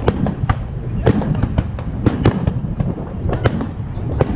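Fireworks display: a rapid, irregular string of sharp cracks and bangs from bursting shells over a continuous low rumble.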